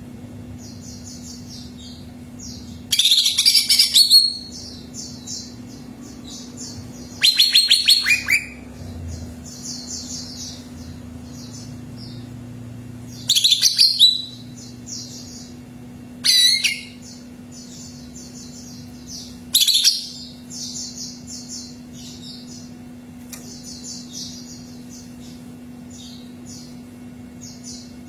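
Cucak ijo (greater green leafbird) singing: five loud, high-pitched bursts of song a few seconds apart, over continuous softer twittering and a faint steady hum.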